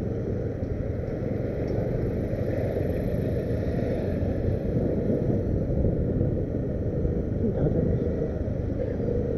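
Steady vehicle rumble: engine and road noise running without a break.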